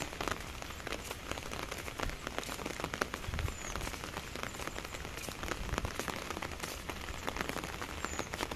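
Steady rain falling, with many sharp close raindrop ticks over an even hiss, and a couple of brief low rumbles near the middle.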